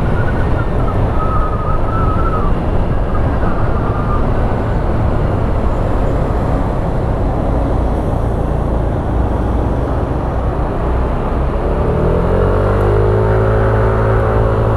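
Motorcycle on the move: engine running under a steady rush of wind and road noise. About twelve seconds in, the engine note climbs steadily as the bike accelerates.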